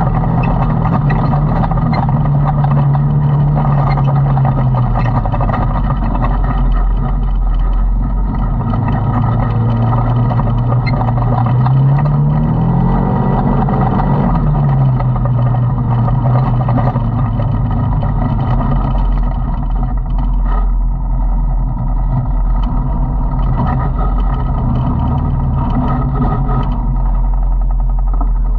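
Side-by-side UTV engine running steadily while driving, heard from inside the cab. Its pitch dips a little, climbs briefly about thirteen seconds in as the machine speeds up, then falls back and settles.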